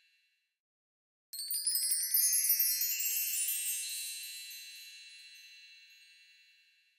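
A chime sound effect: a sudden shimmering run of high tinkling chimes comes in about a second in, then rings on and slowly fades away.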